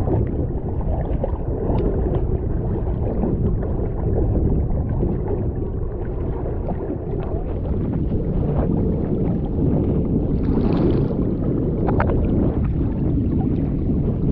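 Steady rush of sea water with wind on the microphone, broken by a few faint splashes.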